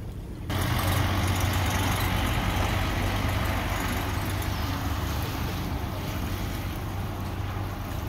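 Water rushing into a canal lock chamber through its opened sluices. It starts suddenly about half a second in and slowly eases, over the steady low hum of the boat's idling engine.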